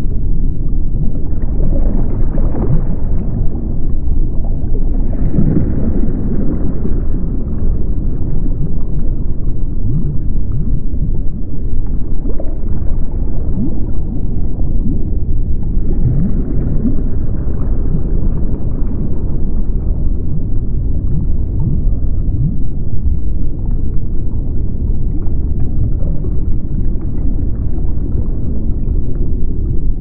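Deep underwater ocean ambience: a steady low rumble that swells a little fuller around two, five and sixteen seconds in.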